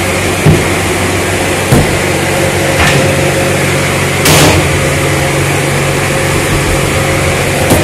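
Steady motor hum, with three sharp knocks of cardboard cartons being handled and stacked in the first three seconds, then a short rushing scrape about four seconds in.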